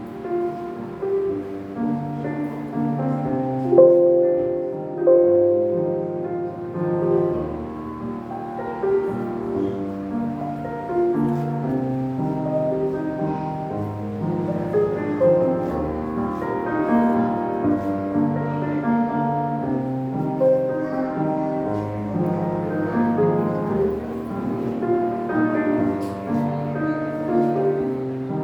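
Instrumental music: a piano melody over held bass notes, playing continuously.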